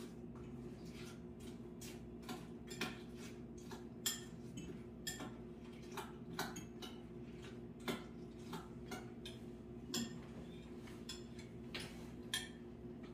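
Utensils and dishes clinking and tapping on a kitchen table, irregular light clicks about once or twice a second, over a steady low hum.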